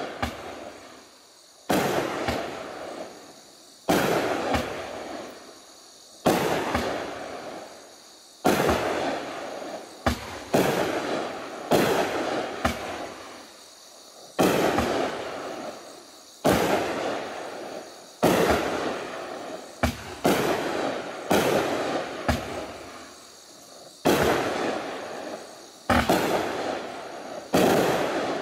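Raging Willow 200-gram consumer fireworks cake firing its shots in sequence: a sharp report about every one to two seconds, each followed by a rush of noise that fades before the next.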